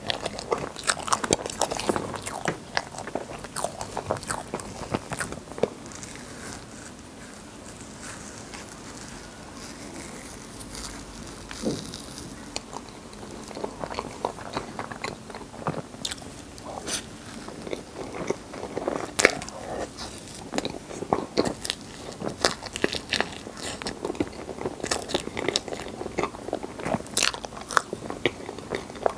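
Close-miked eating sounds: a person chewing and biting, with wet mouth clicks and smacks, quieter and sparser for a few seconds in the middle.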